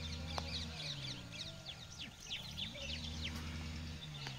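Many small birds chirping rapidly in short, falling chirps, like a flock calling together. Under it runs a low motor hum that drops in pitch about a second in, rises again in the middle, and drops once more near the end.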